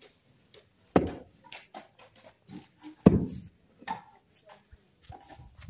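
A phawda (Indian digging hoe) chopping into hard-packed earth: two heavy blows about two seconds apart, one about a second in and one about three seconds in, with lighter knocks between them.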